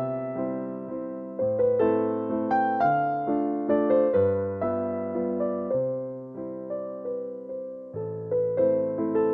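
Background music: a gentle solo piano tune, its notes struck and fading, over slow-changing bass notes.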